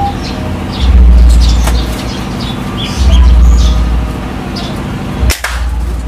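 Eurasian tree sparrows chirping over a low rumble that swells and fades every second or two; about five seconds in, one sharp crack.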